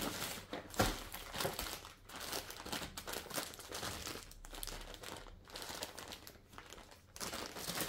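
Plastic parcel packaging being opened by hand, crinkling irregularly as it is pulled and handled.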